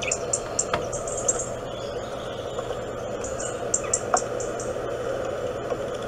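Forest birdsong from a bird video played on a smartphone speaker: groups of high, rapid trilling chirps that come and go, a few single sharp chirps, and a steady background hiss of outdoor ambience.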